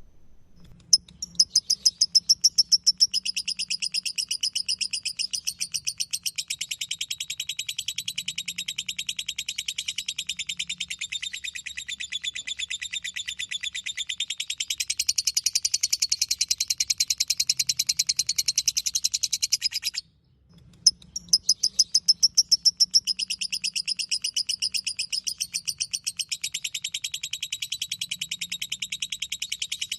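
Lovebird ngekek song: a long, unbroken run of rapid, high chattering chirps. It cuts off suddenly about two-thirds of the way through and starts again a second later.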